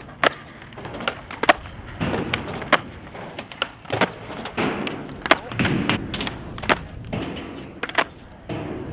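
Skateboard flatground flip tricks on concrete: a string of sharp clacks and knocks as the tail pops and the board flips, hits and slaps down on the ground.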